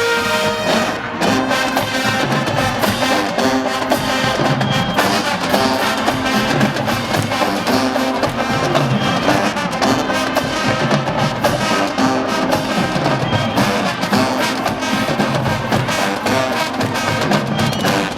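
University marching band playing: brass and drumline together in a driving, up-tempo piece. A held brass chord gives way about a second in to a busier passage with steady drum hits.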